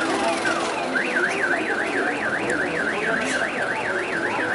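Car alarm sounding: a few falling chirps, then about a second in a fast rising-and-falling warble, about four cycles a second.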